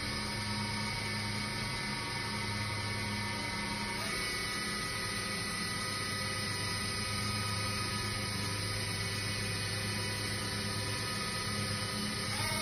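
Spindle of a 2002 Cincinnati V-CNC500 vertical machining center running free with a steady whine made of several tones. Its pitch steps up about four seconds in and again near the end as the spindle speed is raised.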